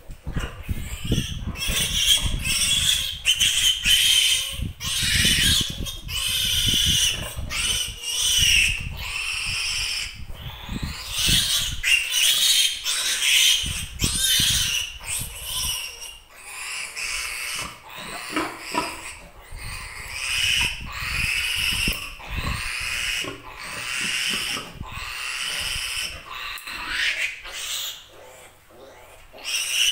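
Piglet squealing loudly and shrilly, one long squeal after another with only brief breaks: the distress squeals of a piglet held and restrained for tooth clipping.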